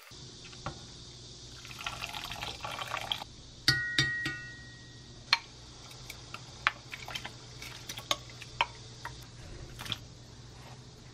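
Kitchen scissors snipping kimchi in a glass bowl, then a sharp clink on the glass bowl that rings briefly about four seconds in. After it come scattered clicks and wet plops as kimchi is scraped from the glass bowl with a spoon into a pot of water.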